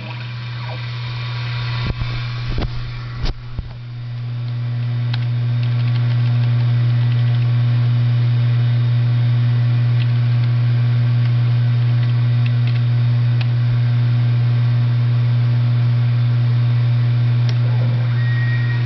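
Taig CNC mill running a G83 peck-drilling cycle with an end mill: a steady motor hum, with a few sharp clicks about two to four seconds in, after which the hum grows louder and holds steady.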